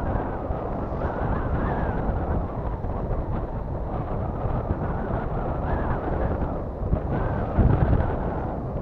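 Wind buffeting the microphone of a mini camera mounted on a sport kite's crossbar: a rough, gusty rumble that swells louder near the end.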